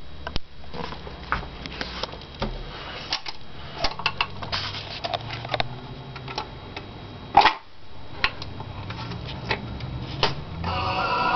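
Admiral Y949 record changer cycling: irregular clicks and knocks of its mechanism over a low hum, with one heavy clunk about seven and a half seconds in. Near the end the record begins to play music.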